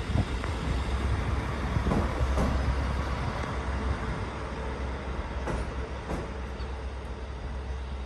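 JR Hokkaido KiHa 40 diesel railcar's engine running with a steady low rumble as it pulls slowly into the platform. Over the rumble come short knocks, several in pairs about half a second apart, from the wheels passing over rail joints.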